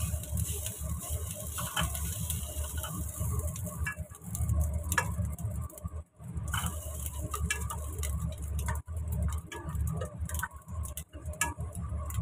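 Black serving spoon scraping and knocking cold cooked rice out of a nonstick rice cooker inner pot into a wok: a scatter of short knocks and scrapes. A steady low hum runs underneath, and a hiss comes and goes.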